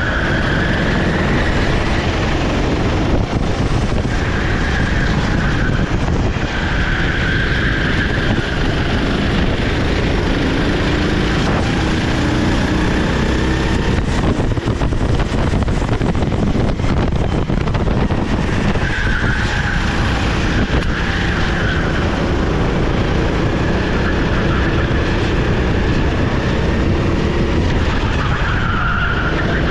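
Sodi SR4 390cc rental kart's single-cylinder four-stroke engine running hard at racing speed, without a break. A high squeal comes and goes several times over the engine and track noise.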